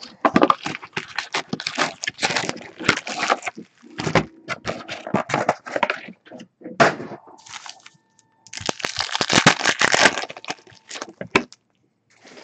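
Foil-wrapped Bowman Chrome football card packs crinkling and crackling as they are handled and pulled from the box, in several spells of rapid crackle with short pauses between.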